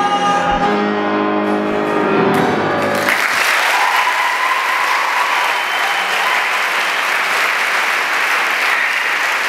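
A male singer's final held note of a music-theatre song with accompaniment, ending about three seconds in, followed by an audience applauding steadily.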